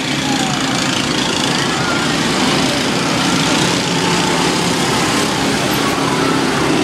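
Several small go-kart engines running together as karts circle the track, a steady engine drone, with faint voices underneath.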